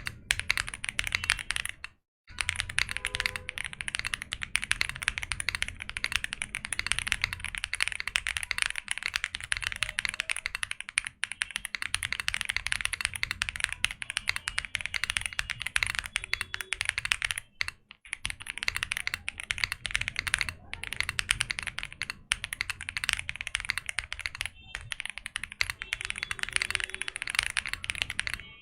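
Continuous fast typing sound test on a Sugar65 gasket-mounted aluminium 65% keyboard with FR4 plate and Leobog Greywood V4 switches: dense keystroke clacks, stopping briefly about two seconds in and again near eighteen seconds.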